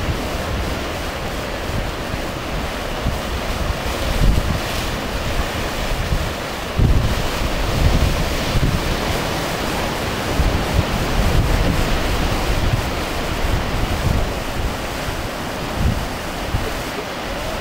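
Ocean surf breaking and washing up a sandy beach, with wind buffeting the microphone in irregular low rumbles.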